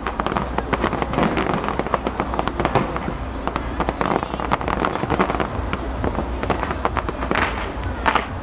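Fireworks show bursting in a dense, continuous barrage of rapid pops and crackles, with a few louder bangs near the end.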